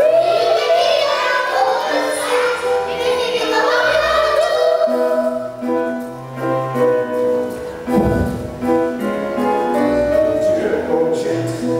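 A stage-musical song performed live: children's voices singing over an instrumental backing of steady held notes. There is a low thump about eight seconds in.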